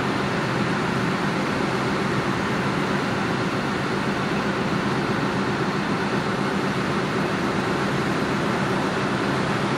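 Diesel locomotive engine running steadily at the head of a passenger train, an even, unchanging drone.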